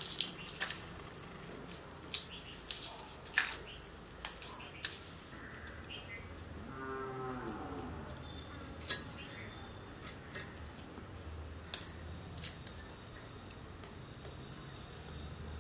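Garlic cloves being peeled by hand against a blade on a wooden board: scattered light clicks and crackles of the papery skins tearing and the blade catching. About halfway through, a single drawn-out pitched call sounds in the background.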